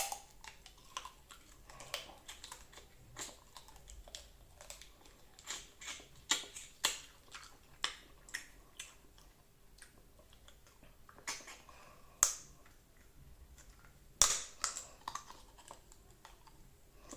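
Close-up crunching and cracking of hard meat bones being bitten and chewed. Irregular sharp cracks, busy at first, sparser in the middle, with a few louder ones later on.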